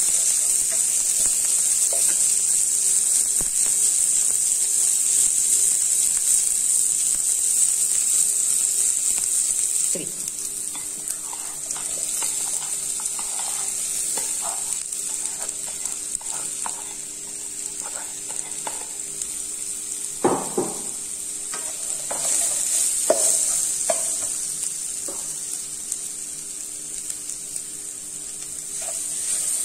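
Onion, garlic and chilli sizzling in a nonstick wok, stirred with a spatula that scrapes the pan. About ten seconds in the sizzle quietens, and grated cassava is tipped in and stirred through with scrapes and knocks on the pan. A steady low hum runs underneath.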